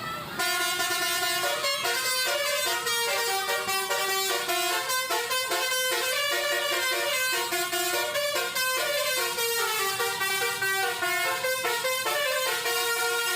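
Indonesian bus 'telolet' musical horn playing a quick tune of stepped notes without a break, stopping abruptly near the end.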